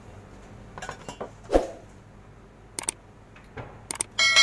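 Light clatter and a knock of kitchenware being handled on a café counter, then a few sharp double clicks. Near the end comes a sudden loud bell-like ding that rings on and is the loudest sound.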